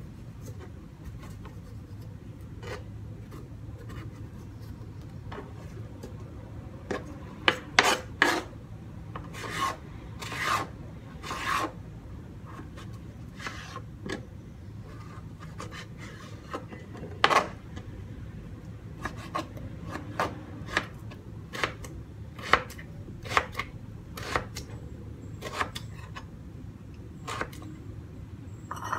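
Kitchen knife cutting through a firm, not-too-ripe mango onto a plastic cutting board: scattered scraping cuts, a bunch of louder strokes about a third of the way in, then a run of evenly spaced chops near the end as the flesh is diced. A low steady hum sits underneath.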